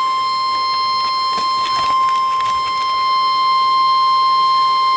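NOAA Weather Radio 1050 Hz warning alarm tone: one loud, steady, unbroken tone, the alert signal sounded before a warning message is broadcast.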